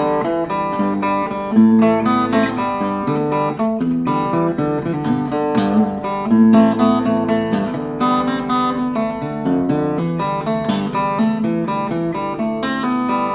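Faith acoustic guitar played fingerstyle: a flowing, improvised pattern of plucked treble notes over picked bass notes, worked around an A minor chord.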